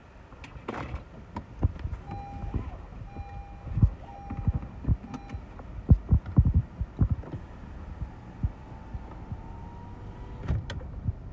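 Gusty storm outflow wind buffeting the microphone through an open car window, in uneven low thumps. Near the end come two sharp clicks, and then a power window motor starts running.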